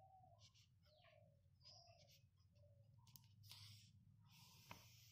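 Near silence: faint scratching of a pen writing on paper, with faint short bird calls behind it.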